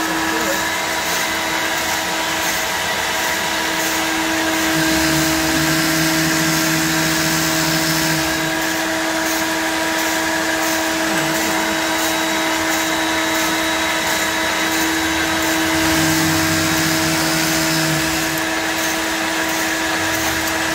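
Industrial overlock sewing machine running at high speed while closing a sock toe: a steady motor whir and hum, with two spells of heavier running sound about five and fifteen seconds in as the stitching works.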